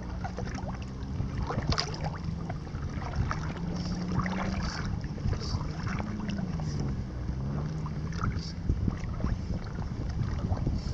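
Water slapping and splashing against a small boat at water level, with a low motor hum underneath that wavers in pitch, rising and falling again about six seconds in.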